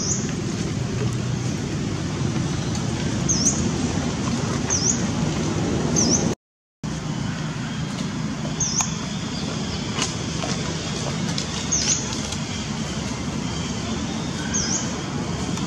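Steady low outdoor rumble like distant road traffic, with short high chirps every second or two. The sound cuts out completely for about half a second around six seconds in.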